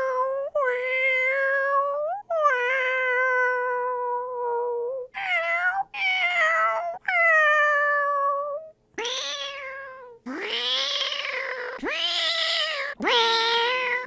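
A person imitating cat meows with the mouth: a string of about ten drawn-out meows, several held for two seconds or more. The later meows start low and slide up before levelling off.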